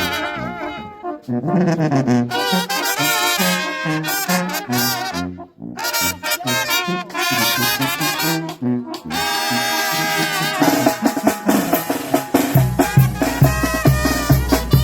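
Brass band playing a ranchera: trumpets carry the melody over a stepping tuba bass. Near the end the band thickens, and a heavy bass and drum beat comes in.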